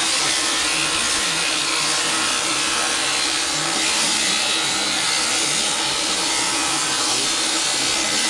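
Electric sheep-shearing handpiece on a flexible drive shaft, running steadily as it cuts through a sheep's fleece.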